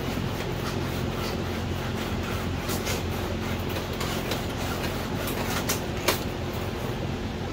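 Scraping and scattered clicks of a car windshield being worked loose from its frame by hand, over a steady low hum, with one sharp click about six seconds in.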